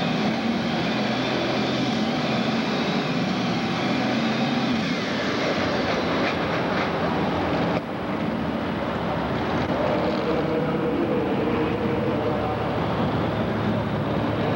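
Super stock pulling tractor's turbocharged diesel engine running at low speed, loud and steady, while the tractor is backed up to the weight-transfer sled for hook-up. The sound breaks off abruptly about eight seconds in and picks up again at a slightly different pitch.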